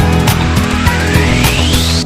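Loud background music with a driving drum beat and a rising sweep that cuts off suddenly at the end.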